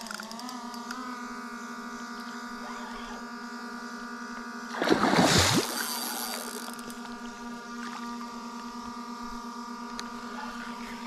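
Background music: a sustained droning chord whose pitch wavers during the first second, then holds steady. About five seconds in, a brief loud splash in the water at the bank.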